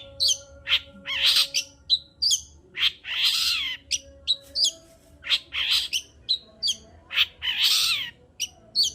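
Long-tailed shrike (cendet) singing vigorously: a rapid run of sharp chips and short whistled notes broken by harsh rasping squawks, the longest about three seconds in and again near the end.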